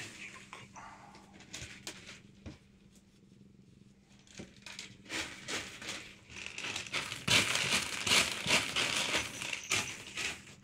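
Rustling and crinkling with scattered light clicks, louder and denser from about seven seconds in.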